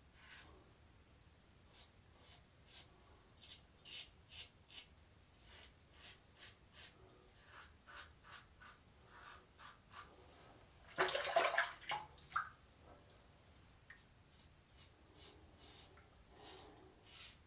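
Double-edge safety razor scraping through shaving lather and stubble in short, quick strokes against the grain, a few each second. About eleven seconds in there is a louder splash of water, lasting a second or so.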